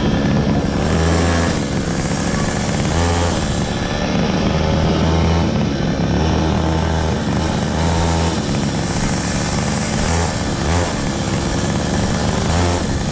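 Children's electric ride-on car driving across asphalt: the motor and gearbox whine while the plastic wheels rumble on the pavement. A low hum cuts in and out every second or two as the pedal is pressed and released.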